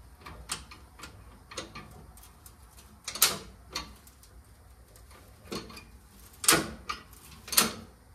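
Irregular metal clicks and clanks of a hand tool and loose parts while a riding mower's steering column is taken apart, with sharper knocks about three seconds in and twice near the end.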